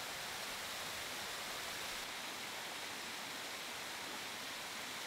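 Small waterfall cascading over rock: a steady rush of falling water.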